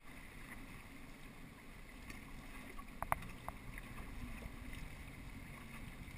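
Faint wind and water noise from an inflatable boat moving over open water, with a few light clicks about three seconds in.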